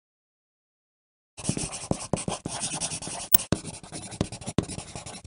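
Pencil writing on paper: quick scratching strokes that start about a second and a half in, with one sharp tick about halfway through.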